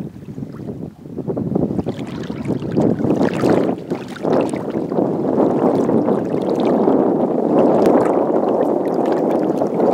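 Wind on the microphone over shallow bay water, growing steadily louder. In the first few seconds it is broken by short splashes as a hooked redfish thrashes at the surface.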